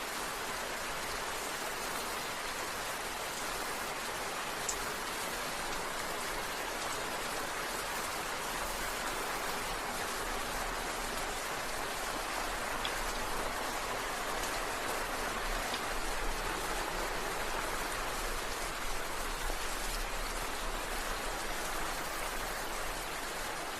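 Steady rain falling, an even hiss of many drops with a few single drops ticking now and then.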